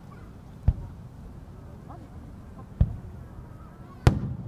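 Aerial firework shells bursting: three sharp bangs, the third near the end the loudest, each trailing off in a brief rumble, with faint crowd chatter underneath.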